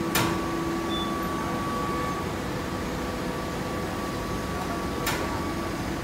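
Steady hum of industrial machinery running, with two sharp clacks, one just after the start and one about five seconds in.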